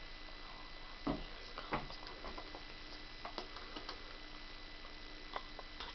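Scattered soft clicks and taps, the loudest about a second in and just under two seconds in, over a faint steady hum.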